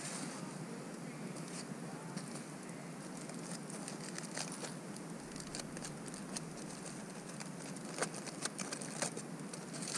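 Aluminium foil packet crinkling as it is handled, a few sharp crackles over a steady low hiss.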